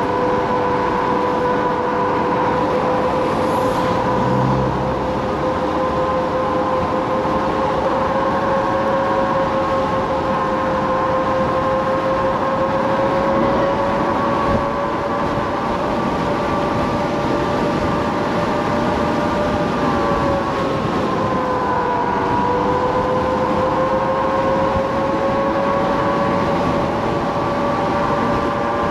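Kaabo Wolf King GT electric scooter's dual hub motors whining steadily at cruising speed, over wind and tyre noise. About two-thirds of the way in, the whine drops in pitch as the scooter slows, then climbs again.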